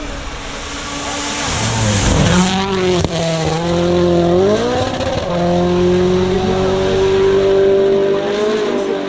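A rally car's engine running hard close by, getting louder as it approaches. Its note dips and climbs twice as the gears change, then holds a steady high pitch.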